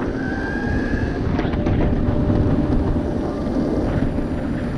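Steady low rumble of a DIY electric skateboard rolling over pavement, with a short, slightly rising high whine about a second in.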